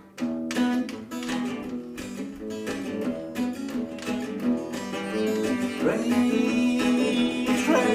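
Acoustic guitar playing a repeating riff in 7/8 time with hammer-ons and pull-offs. A man's voice starts singing over it about six seconds in.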